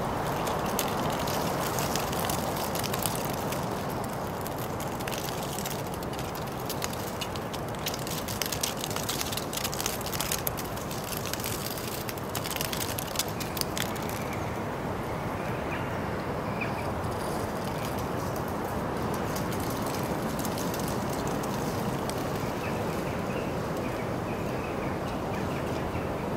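Steady outdoor town background noise with a run of rapid rattling clicks through roughly the first half, which then die away.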